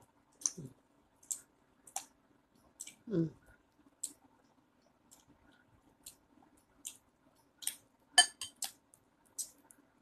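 Kitten chewing a treat: small, sharp crunching clicks at an irregular pace of about one a second, with a quick cluster of louder ones about eight seconds in. A brief low sound falls in pitch about three seconds in.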